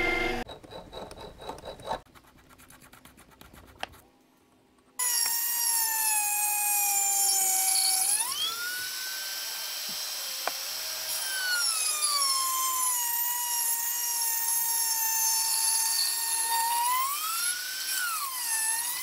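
High-speed rotary tool spinning a carbide cutter, cutting a flat on a small toothed pulley clamped in a lathe chuck. It starts about five seconds in with a high whine that steps up in pitch, drops back and rises again a few times. Before it, the lathe runs briefly, then there are a few soft clicks.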